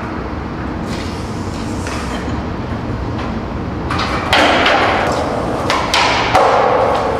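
Skateboard wheels rolling over concrete with a steady rumble. About four seconds in the board scrapes loudly along a ledge, and again near the end along a short post, as grinds or slides.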